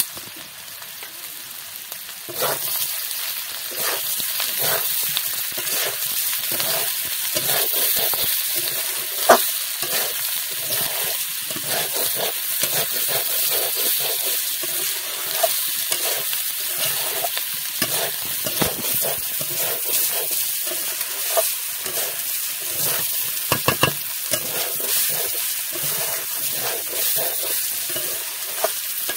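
Green figs and potato pieces frying in spices in an aluminium kadai, stirred with a metal spatula: a steady sizzle with repeated scrapes and knocks of the spatula against the pan. The sizzle grows louder about two seconds in. This is the dry-frying (koshano) stage, before any water is added.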